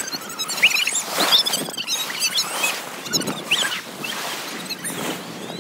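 Sea waves washing in and water splashing in the shallows, in repeated surges, with many short high-pitched squeaks and chirps over them.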